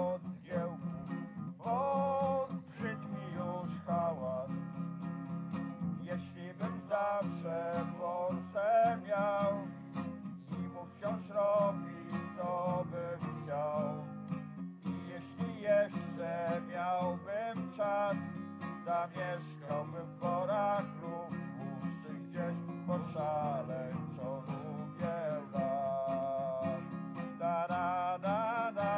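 Acoustic guitar strumming chords under a wordless melody line: an instrumental passage of a folk song.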